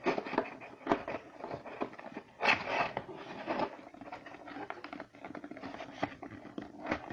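A cardboard box being handled and folded, with a tab pushed through a hole: irregular taps, knocks and rubbing of the cardboard, and a longer, louder rub about two and a half seconds in.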